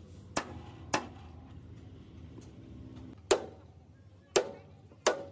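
Sledgehammer blows on the steel chassis rail of a crash-bent Hino truck frame, which is being hammered straight. There are five ringing metal strikes: two close together, then a pause, then three more.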